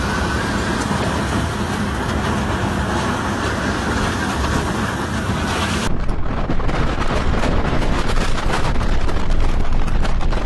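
Tornado wind blasting over the microphone: a loud, steady rush of noise. About six seconds in it changes abruptly and grows louder, full of rapid crackling buffets.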